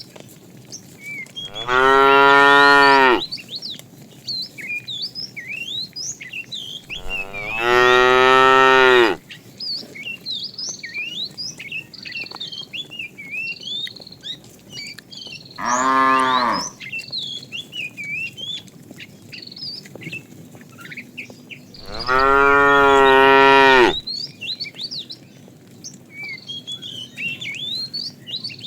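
Cows mooing: four long, loud moos several seconds apart. Between them, small birds chirp constantly in the background.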